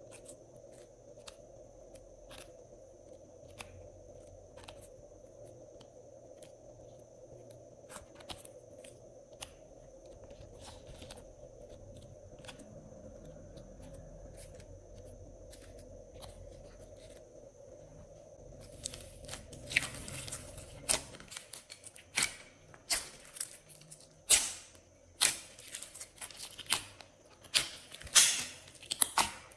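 Light scattered clicks and taps as soft clay discs are picked off a plastic sheet and dropped onto slime, over a faint steady hum. About two-thirds of the way in, loud crackling pops and squelches begin as hands press and squeeze glossy slime in a glass dish.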